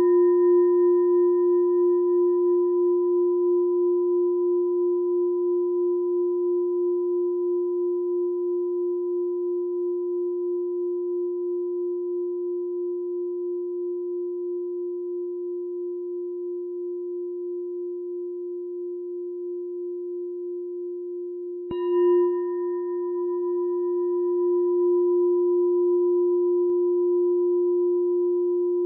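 Meditation bell ringing on after a strike, its low tone slowly wavering and fading away. It is struck again about 22 seconds in and rings on.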